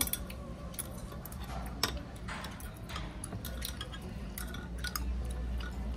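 Metal spoon, fork and chopsticks clicking and clinking now and then against a stainless steel pot and bowls, over a steady low hum.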